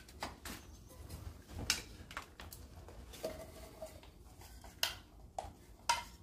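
A thin metal frying pan being bent and folded by hand: faint scattered clicks and knocks, with a short squeak about three seconds in.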